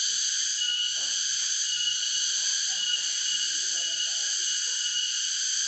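Dense, steady chorus of calling insects: a high, shrill drone with several pitches layered together and a slight recurring pulse in one of them.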